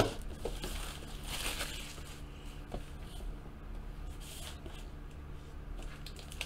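Faint handling noise from a cardboard trading-card box and a foil-wrapped card pack being moved about on a table: soft rustles and a few light taps, over a low steady hum.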